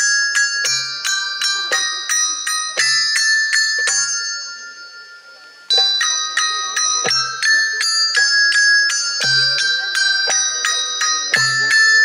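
Live percussion music: a quick run of struck, ringing bell-like metal notes, about three a second, with an occasional low drum beat under them. The playing stops and rings away about four seconds in, then starts again near six seconds.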